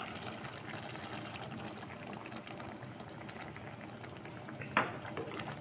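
Tripe curry simmering in a pot, its gravy bubbling with a steady crackle of small pops. There is a single short, sharper knock near the end.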